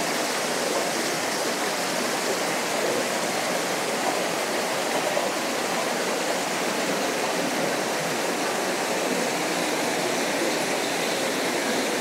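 Small waterfall rushing steadily as water cascades over stepped rock ledges: an even, unbroken rushing hiss.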